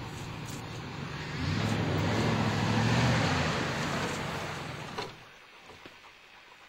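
A car running and driving along, growing louder for a couple of seconds, then cutting off abruptly about five seconds in to a much quieter background.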